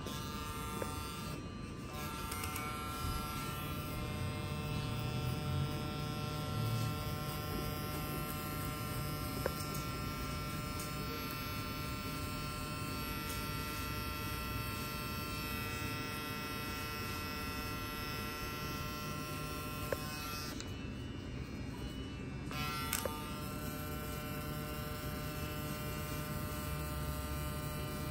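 Electric hair clippers running with a steady buzz while cutting a fade haircut.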